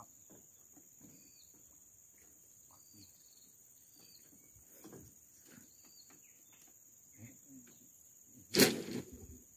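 Insects buzzing steadily at a high pitch, with a few faint short chirps, and one loud sudden noise near the end.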